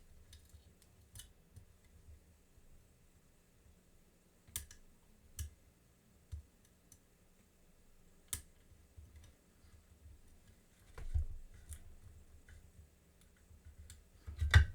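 Scattered sharp clicks of a lock pick and tension wrench working the pins inside an American Lock 1100 series lock, a few seconds apart, with a duller handling rustle later on.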